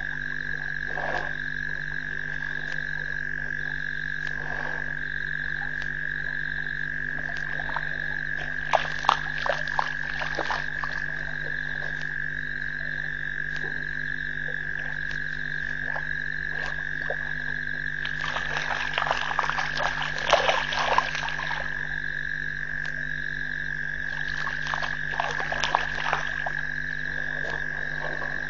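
A frog chorus: a steady, unbroken high trill with a fainter chirp repeating about once a second above it. Three louder spells of rapid clicking rise over it, about nine seconds in, around twenty seconds, and near the end.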